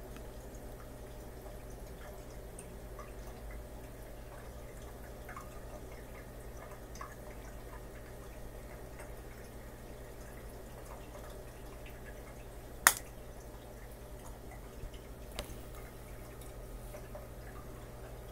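Steady low aquarium hum with faint scattered ticks and plinks, broken about two-thirds of the way through by one sharp, loud click and a weaker one a couple of seconds later: a peacock mantis shrimp striking a snail's shell.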